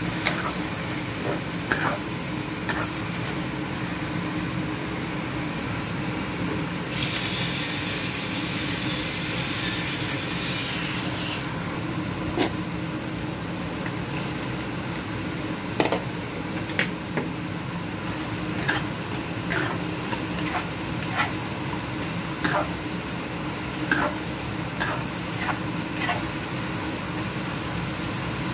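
Beech mushrooms and snow peas sizzling in a hot stainless steel wok, with a spatula scraping and tapping against the pan from time to time. The sizzle grows louder and brighter for about four seconds, a quarter of the way in.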